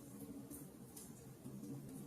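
Wood fire burning in a fireplace, faint, with a couple of small crackles about half a second and a second in over a low steady background.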